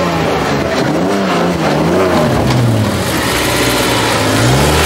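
Honda S2000's 2-litre VTEC four-cylinder engine being revved, the revs swinging up and down about three times.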